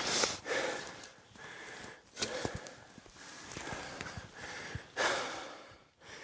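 A man breathing hard, with a few loud, irregular exhales and sniffs; the strongest come right at the start and about five seconds in.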